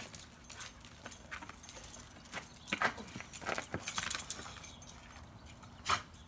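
Dog's collar tags jingling as the dog moves about on asphalt, with light clicks and scuffs, busiest about three to four seconds in and ending with a sharper click.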